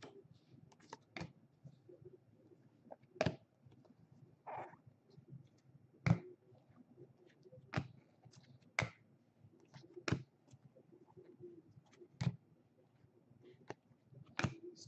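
Trading cards being handled and flipped through by hand: soft sharp clicks and snaps every second or two, with a brief swish about four and a half seconds in.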